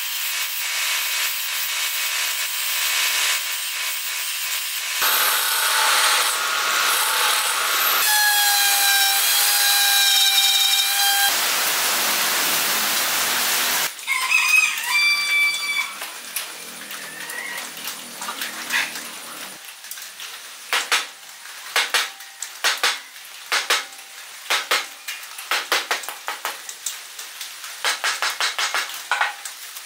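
A wood lathe spinning a blank while a hand-held turning chisel cuts it: a steady hiss of shavings, with a few seconds of high steady whining tones near the middle. In the second half comes a rapid, uneven clatter of knocks as the chisel hits a rough, out-of-round bark-covered log being roughed down.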